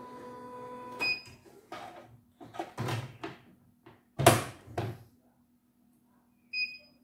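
Plastic clicks and knocks as an embroidery hoop is seated and clipped onto the arm of a CNY E900 embroidery machine, the loudest knock about four seconds in. Near the end the machine gives a short electronic beep.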